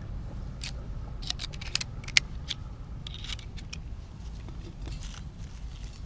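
Screwdriver tip scraping and clicking against the edge of a metal water shut-off box plate as dirt and dry grass are picked out of the gap, in a run of short sharp ticks with a few brief scrapes, over a steady low rumble.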